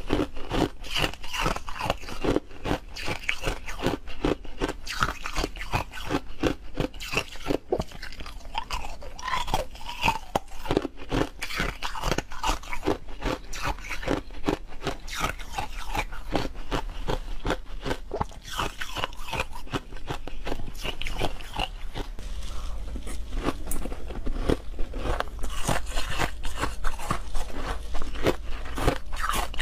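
Frozen milk ice being bitten and chewed close to the microphones: a dense, steady run of loud crunches. About two-thirds of the way through it cuts to a different recording of ice being crunched.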